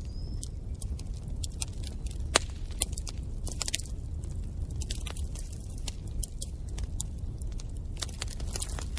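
Wood fire in a fireplace crackling: irregular sharp pops and snaps over a steady low rumble of the flames, with one louder pop about two and a half seconds in.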